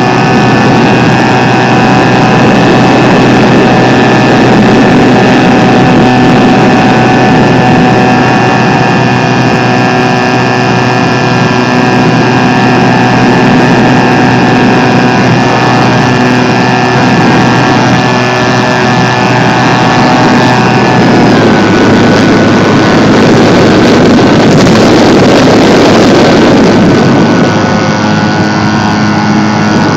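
Brushless electric motor (HeadsUpRC Brushless 480 Plus) and propeller of an RC plane, heard close from on board, running with a steady whine and wind rushing over the microphone. About 21 seconds in the whine drops a step in pitch as the motor slows, and for a few seconds the wind rush is stronger before steady tones return near the end.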